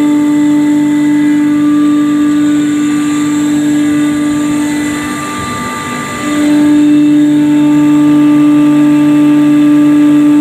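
Seed-spice processing machinery running: a loud, steady machine hum with a strong held tone and fainter steady tones above it. It dips briefly about five seconds in, then comes back steady.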